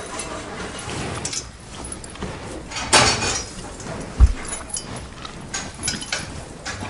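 A cow breathing out hard through its nostrils in repeated noisy blasts of air, the strongest about three seconds in. A short low thump follows about a second later.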